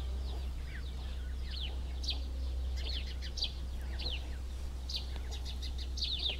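Small birds chirping: a running string of short, quick downward-sweeping chirps, several a second, over a steady low hum.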